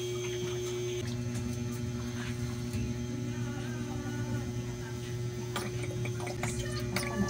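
Cooking oil poured from a plastic squeeze bottle into a steel wok, over a steady low hum.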